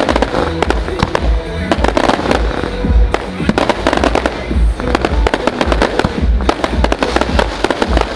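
Fireworks display: a rapid run of bangs and crackles with deep thumps, over loud music played through a sound system.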